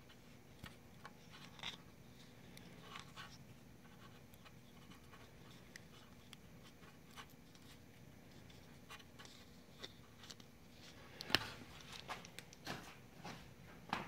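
Faint handling sounds of yellow Teflon tape being wrapped around the threads of a brass pressure relief valve: scattered small clicks and rustles, busier near the end, with one sharper click about eleven seconds in.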